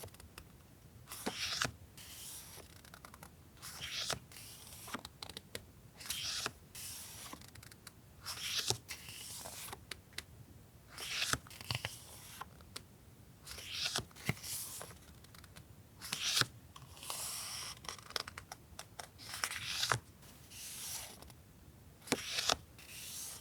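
Paper stationery and its packaging being handled at close range: repeated short rustling, crinkling and tearing sounds every second or two, with small sharp taps between them.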